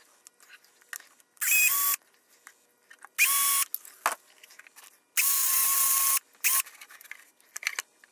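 Handheld power drill running in three short bursts, each spinning up quickly to a steady whine, as it turns screws in the plastic intake housing. Light clicks and the handling of plastic parts sound between the bursts.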